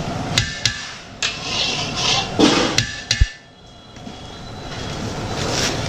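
A metal spoon scraping through a thick mysore pak mixture and knocking against the sides of an iron kadai. There are several sharp clanks in the first three seconds, the loudest a little after three seconds in.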